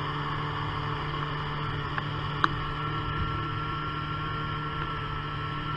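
Snowmobile engine running at a steady cruise, heard muffled through a waterproof camera housing as an even, unchanging drone. There is one sharp tick about two and a half seconds in, and a thin higher whine joins at about three seconds.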